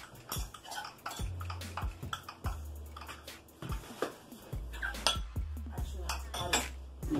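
Metal rolling pin working pie dough on a granite countertop: irregular clacks and clinks as the pin and its handles knock against the stone while it is rolled back and forth.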